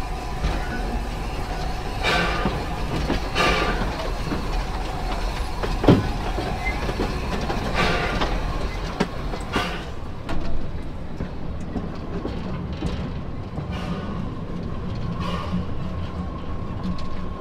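1910 Vulcan 0-4-0 steam locomotive running slowly, heard from the cab: exhaust chuffs come about every second and a half and grow fainter after about ten seconds, over a steady rumble of running gear on the rails. A single sharp metallic knock about six seconds in.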